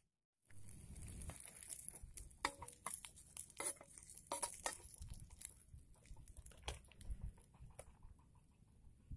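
Irregular clicks and short scrapes of a metal spatula and fingers against a frying pan as the food is turned and lifted off, over a low rumble of wind on the microphone.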